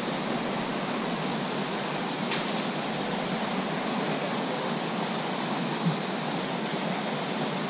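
Steady rush of a small waterfall pouring into a plunge pool on a mountain stream.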